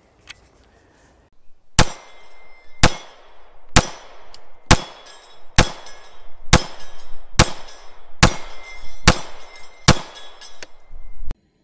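Ruger MAX-9 9mm pistol fired in slow, steady shots, about ten of them at roughly one a second. A short metallic ring from the steel target follows several of the hits.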